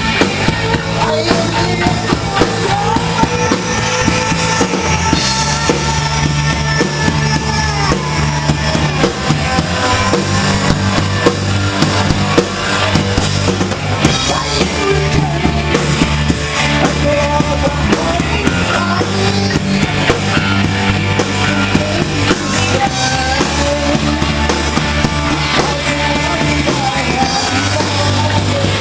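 Rock band playing live: drum kit, bass holding long low notes that change every few seconds, and a sung vocal line over the band.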